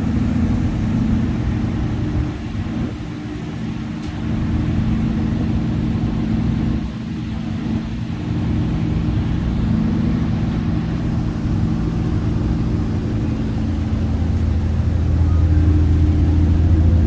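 A riverboat ferry's engine running steadily, a low hum of several constant tones that grows louder near the end.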